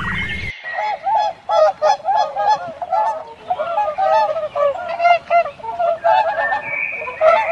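A flock of farm birds calling, with many rapid, repeated, overlapping calls, several a second. They start abruptly about half a second in.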